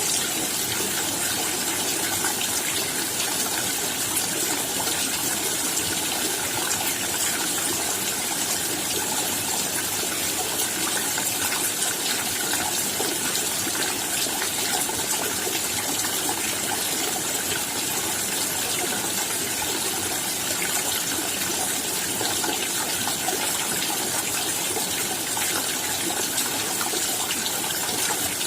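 Rain falling steadily: an even hiss of many raindrops with faint separate drop ticks scattered through it.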